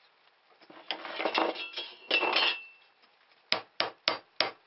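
Wooden clamp parts rubbed and scraped against each other as they are pushed together, then a hammer tapping a small nail into the wood, four light blows about three a second, starting past halfway.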